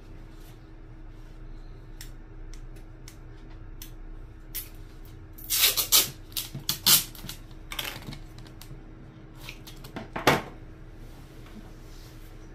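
Adhesive tape being pulled off the roll and torn in a few short rasping strips, among light handling clicks, as holes in a speaker cabinet are taped shut to make it airtight. The loudest tearing comes about halfway through, with one more sharp rip near the end.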